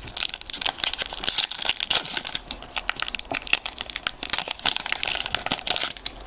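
Foil trading-card pack wrapper crinkling and tearing as it is pulled open by hand, a dense run of sharp crackles.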